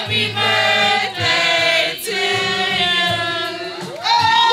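Music with voices singing long held notes in harmony, choir-like, moving to a new chord a few times.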